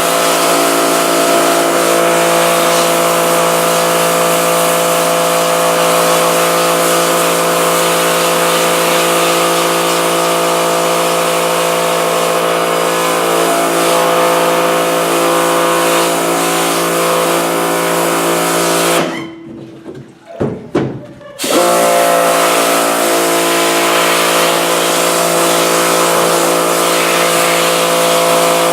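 Pressure washer running steadily, its motor and pump drone under the hiss of the spray as it blasts leftover stencil out of a screen-printing screen. About two-thirds of the way in, motor and spray cut out for about two seconds, then start up again.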